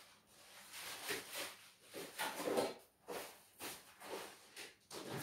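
Faint rustling and handling noises: a string of short scuffs and rustles, the loudest about two and a half seconds in, then coming roughly every half second.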